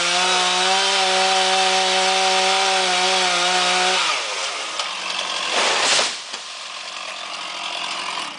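Chainsaw running at a steady high speed, then dropping off and winding down about four seconds in. A loud rush of noise follows near six seconds, with lower, mixed noise after it.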